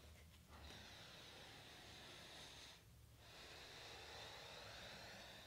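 Faint, slow breathing, mostly through the nose: long breaths with short pauses about half a second in and about three seconds in.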